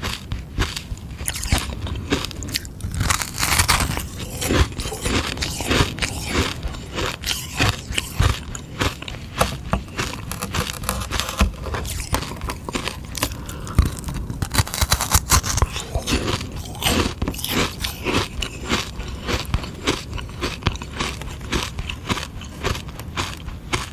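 Close-up biting and chewing of a hard sugar-water ice lolly: a dense run of crisp, irregular crunches and crackles of ice breaking between the teeth, thickest twice, about three seconds in and around the middle.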